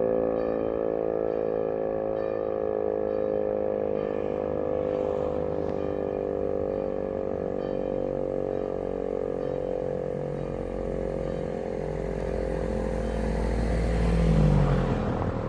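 Old Rosenbauer FS8 rotary siren sounding a steady tone of several notes at once that sinks slowly in pitch. A low rumble swells near the end and is the loudest part.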